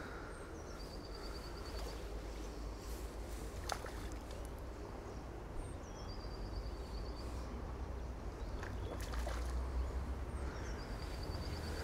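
A small songbird sings the same short, high trilled phrase three times, about five seconds apart, over a steady low rumble, with a couple of faint clicks.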